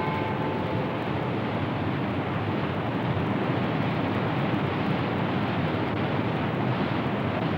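Steady rushing noise of whitewater in a river rapid.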